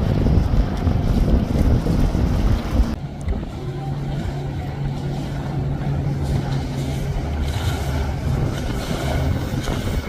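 Outboard-powered boats running fast through choppy water, engine noise mixed with the hiss and slap of spray off the hull. For the first three seconds it is a center-console's triple outboards going by; then it changes abruptly to a small Bayliner Element E18 bowrider's outboard holding a steady drone as the hull pounds and splashes through the chop.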